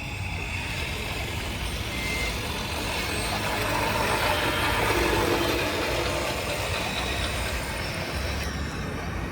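Remote-control scale construction models working, with the simulated diesel engine sound of their sound units running steadily under a noisy mechanical wash, and a short high beep about two seconds in.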